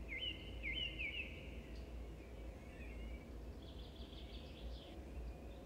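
Faint bird song over a steady low background hum: a run of quick rising whistled notes in the first second and a half, then a short higher chittering phrase about four seconds in.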